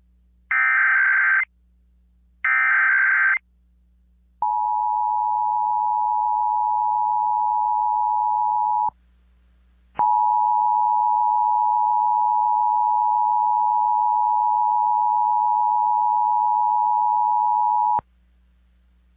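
Emergency Alert System tones from an AM radio required monthly test. First come the last two of the three SAME data header bursts, each about a second of harsh digital warbling. Then the steady two-note EAS attention signal plays for about four and a half seconds, stops for a second, and plays again for about eight seconds before cutting off sharply.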